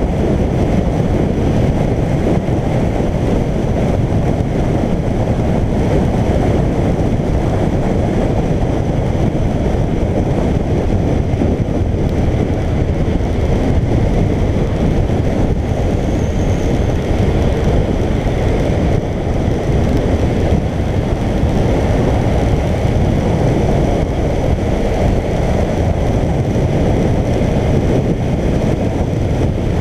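Steady rush of wind on the microphone with the road and engine noise of a Suzuki GSX1400 motorcycle cruising at road speed.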